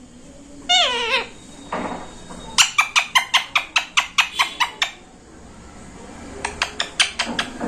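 Green ringneck parrot calling: one short wavering, falling squawk about a second in, then a rapid run of sharp clicking chirps, about six a second for two seconds, and a few more near the end.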